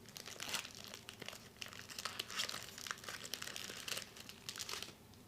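Foil wrapper of a Pokémon booster pack crinkling as it is handled and torn open: a run of irregular, crackly rustles.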